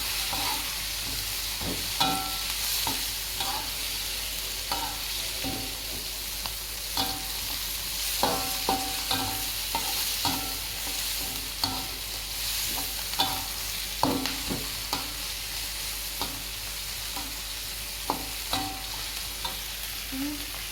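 Green chilies, bird's-eye chilies, shallots and garlic sizzling in hot oil in a wok, while a spatula stirs them, knocking and scraping against the pan at irregular moments, often about once a second.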